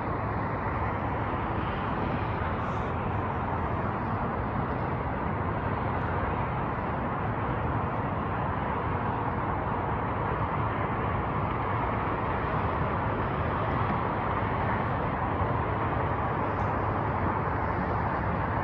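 Steady wash of distant freeway traffic, an even tyre-and-engine noise with no single vehicle standing out.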